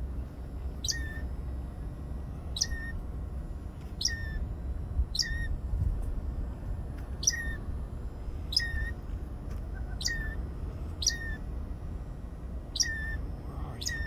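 A songbird repeating the same short call about every second and a half, each a quick high down-slurred note ending in a brief lower note, over a light wind rumble on the microphone.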